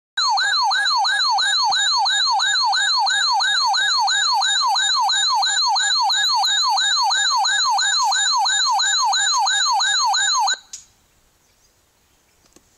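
Electronic siren-style alert tone of an emergency weather alert, sweeping up and down in pitch about two and a half times a second. It stops abruptly about ten and a half seconds in, signalling a Severe Thunderstorm Warning about to be read.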